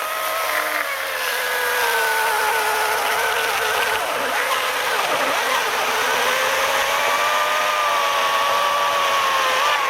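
Oregon self-sharpening chainsaw running steadily as it cuts through a dry log, its pitch wavering slightly under load.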